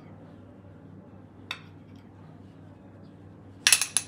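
A metal spoon clinks once lightly about a second and a half in, then several quick clinks near the end as it scrapes and taps a small ceramic bowl, tipping ground cardamom into a steel frying pan.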